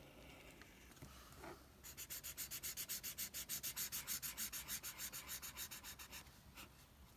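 Black marker scrubbing on sketchbook paper in rapid, even back-and-forth strokes, filling in a solid black area; the scratching starts about two seconds in and stops about a second before the end.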